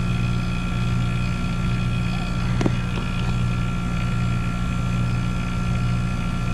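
American Standard rooftop-style package air conditioner running: a steady low hum from its compressor and fans, with a thin steady high whine over it. A brief knock comes a little over two and a half seconds in.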